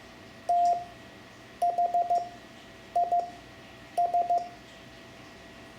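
Morse code (CW) sent as a steady mid-pitched beep, spelling the word THIS: one long dah, then four quick dits, two dits and three dits (T, H, I, S), with short pauses between letters.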